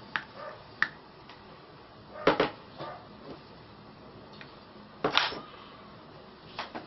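Homemade PVC airgun's plastic pipe and fittings clacking as it is worked by hand: two loud double knocks about three seconds apart, with a few lighter clicks around them.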